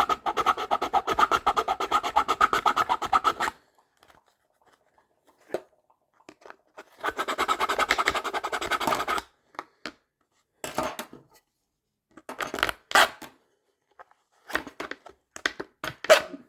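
A hand file rasping on hard plastic in quick, short, even strokes, several a second. The strokes stop about three and a half seconds in, a second run of strokes comes about seven seconds in, and scattered short scrapes and knocks fill the last few seconds.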